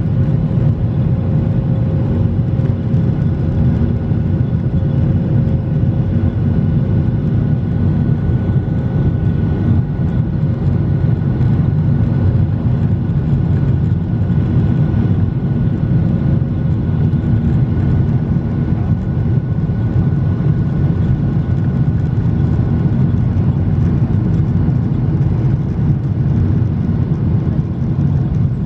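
Boeing 737 jet airliner heard from inside the cabin: a steady, loud, low roar of engines and airflow, with faint steady whining tones over it.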